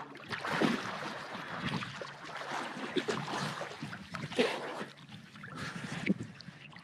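Water splashing and sloshing irregularly as a person gets into the sea and swims.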